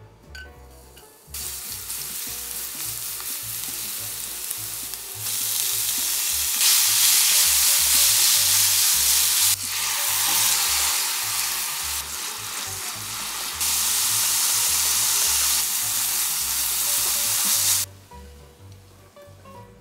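Oil sizzling and spitting in a frying pan as julienned green vegetable strips are stir-fried with chopsticks. The sizzle starts about a second in, grows louder in steps, and cuts off suddenly near the end.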